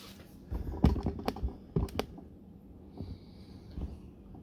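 A quick run of knocks and clatter in the first two seconds, then a few fainter knocks, as the tub of a front-load washing machine is handled and pulled out of its cabinet.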